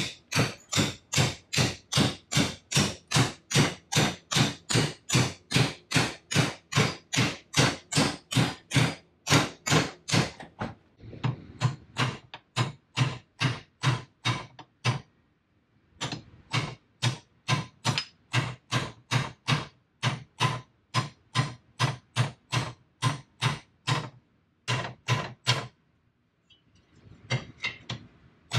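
Hammer blows in a fast, steady rhythm of about three to four strikes a second, with short pauses about halfway through and again near the end.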